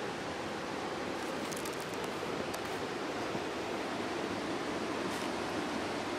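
Steady rush of creek water flowing over rocks.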